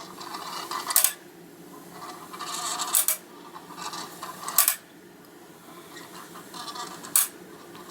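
Yonezawa tinplate clockwork road roller running: its wind-up motor's gear train whirs and rattles steadily. Four sharp clicks or knocks, about a second, three seconds, nearly five seconds and seven seconds in, break the whirring.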